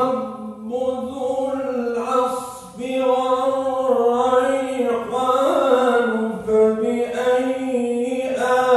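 A male qari reciting the Quran in a drawn-out, chanted style, one voice holding long notes and sliding slowly between pitches, with a short break for breath about three seconds in.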